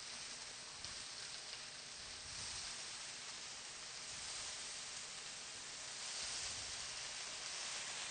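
Steady sizzling hiss from a large frying pan of pansit vegetables and noodles as more noodles are tipped in, swelling slightly about two and six seconds in.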